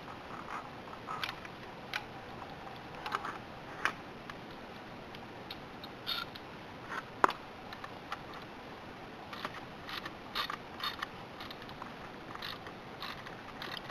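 Scattered metal clicks and taps of hand tools and parts as a motorcycle shift lever is bolted back onto its mount, at irregular moments with one sharper click about halfway through.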